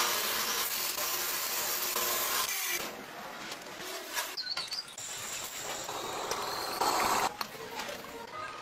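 Metalworking machinery running in a workshop: a dense mechanical grinding and rubbing noise that changes abruptly every two to three seconds, with a short high squeal a little past the middle.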